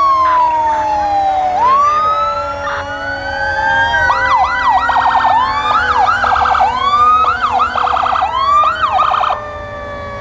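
Fire engine sirens sounding: a long wail that falls and rises, then about four rounds of quick yelps followed by rapid warbling, cutting off shortly after nine seconds in. Underneath, a steady tone slowly sinks in pitch.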